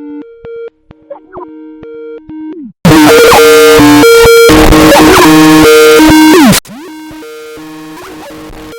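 Three edited variations of the old Skype ringtone in a row. First comes a clean two-note melody with short pitch glides. About three seconds in, a much louder, heavily distorted version breaks in, the loudest part. It cuts off suddenly partway through into a quieter version of the same tune over a steady hiss.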